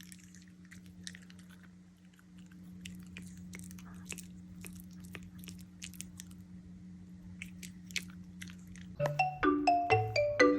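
A dog chewing and crunching, many short sharp clicks at an irregular pace over a steady low hum. A marimba-like melody starts near the end.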